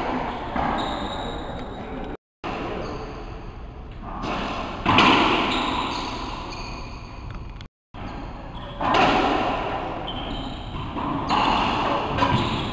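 Racquetball doubles rally: the ball smacking off racquets and the court walls, each hit echoing in the enclosed court, with short sneaker squeaks on the wooden floor.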